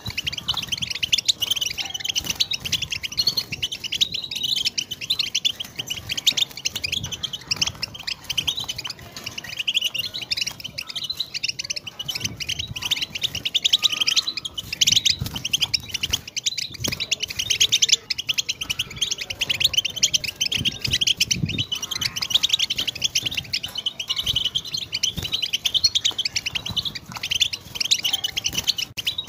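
European goldfinch singing: a fast, unbroken twittering song of quick chirps and trills.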